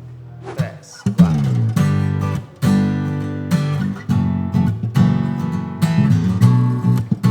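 Fender FA-450CE acoustic bass guitar played with a strummed guitar in a jam. A low held note fades, then about a second in a rhythmic, loud passage of plucked bass notes and strummed chords starts and keeps going.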